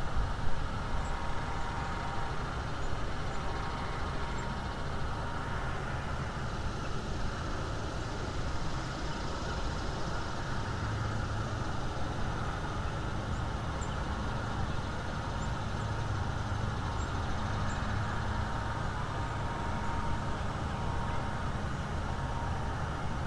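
Steady low rumble of outdoor background noise, with a few faint, brief high chirps scattered through it.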